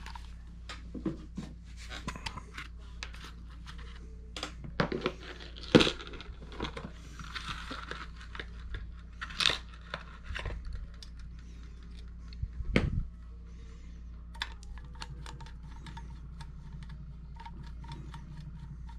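Hands handling a model locomotive's metal chassis and small parts on a workbench: scattered clicks, taps and rustles, with a few louder knocks, over a faint steady low hum.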